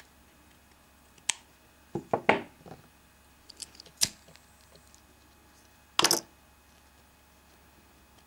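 Close handling noise from fingers working a small organza-ribbon rose on a wire stem: a few separate clicks and short rustles. There is a sharp click about a second in, a quick cluster around two seconds, another click about four seconds in, and a longer scrape about six seconds in.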